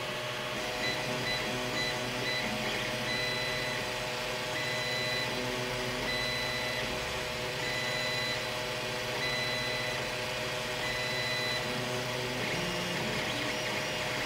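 Creality Ender-3 3D printer printing on its stock V1.1.3 mainboard. The stepper motors give a high whine that starts and stops every second or so as the head and bed move, over the steady whir of the cooling fans. This is the audible motor noise of the older board's non-silent stepper drivers.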